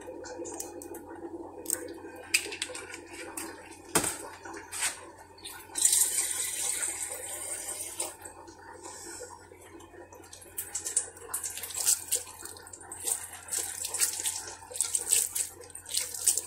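Water poured and splashing onto a heap of steamed barley couscous (belboula) in a clay dish, in irregular hissing spurts through the second half. Scattered light clicks and knocks come before that.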